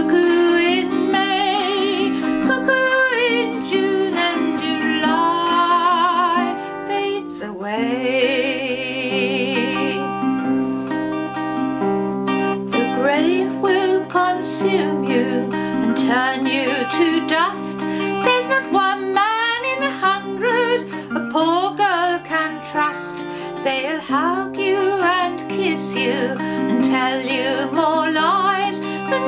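A woman singing a traditional folk song to her own acoustic guitar accompaniment.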